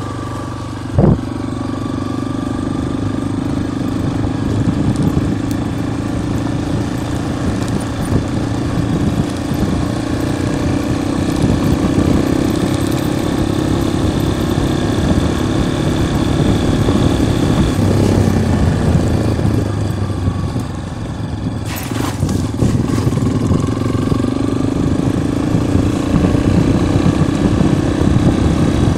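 Yamaha XTZ 250 Lander motorcycle's single-cylinder engine running steadily while riding on a dirt road, its pitch drifting slightly up and down, with a rough rumble underneath. There is a sharp knock about a second in.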